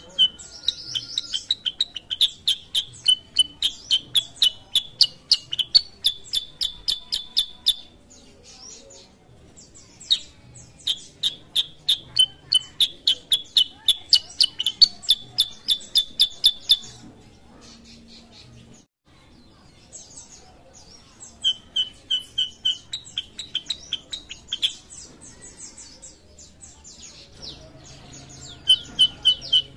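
Kutilang sutra, a bulbul, singing in bouts of rapid, sharp repeated chirps, about five a second. Four bouts of several seconds each, separated by short pauses.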